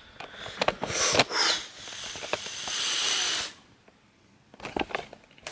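A man's breath close to the microphone: one long hissing breath lasting over a second, about two seconds in, with scattered clicks and knocks from the camera being handled before and after.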